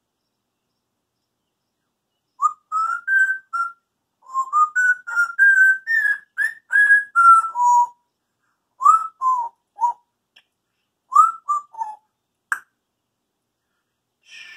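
African grey parrot whistling a run of short notes, most of them quick rising or falling glides, starting a couple of seconds in and thinning to a few scattered whistles toward the end.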